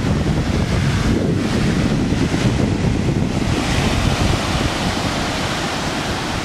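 Ocean surf breaking and washing up the beach, with wind buffeting the microphone in a heavy low rumble.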